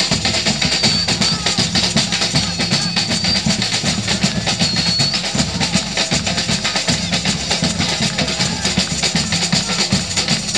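Live carnival band music, loud and percussion-heavy, with drums and tambourine-like jingles keeping a fast steady rhythm through a PA. A high piping tone comes and goes in the first half.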